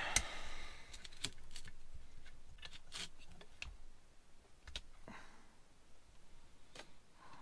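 Scattered light metallic clicks and taps of needle-nose pliers and small linkage parts being worked free of an Autolite 4100 carburetor body and handled on the bench.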